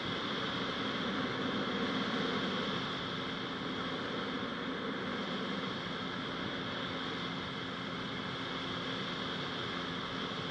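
Buckeye powered parachute's Rotax 582 two-stroke twin engine running at steady power, a continuous drone over a broad rush of air noise.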